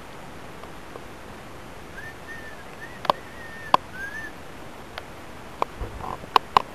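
About six sharp knocks at irregular spacing over a steady hiss, with a thin, high wavering tone lasting about two seconds from roughly two seconds in.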